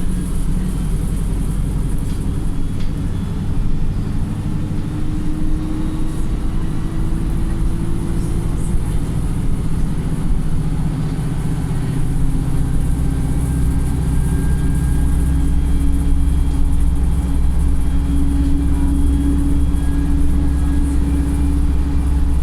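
Wright StreetLite single-decker bus under way, its engine and drivetrain giving a steady, loud drone over road rumble. A whine climbs slowly in pitch over the first several seconds, and about halfway through a lower steady whine grows stronger.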